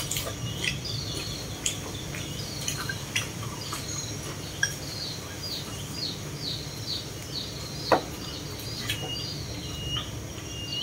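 Chopsticks clicking now and then against ceramic rice bowls, one click louder about eight seconds in, while a bird repeats short chirps the whole time.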